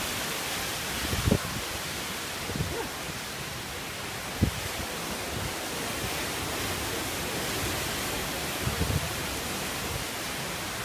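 Category 2 cyclone wind and driving rain making a steady rush of noise, broken by a few brief low thumps.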